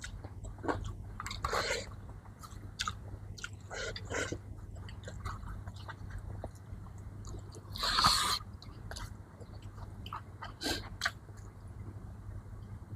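A person eating close to the microphone: chewing and biting food, with scattered short mouth clicks and smacks and one louder bite about eight seconds in.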